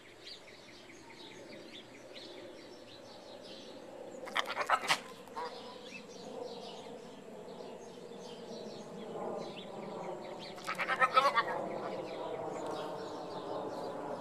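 Pygmy goat kid bleating twice, a short wavering bleat about four seconds in and another about eleven seconds in, over faint bird chirping.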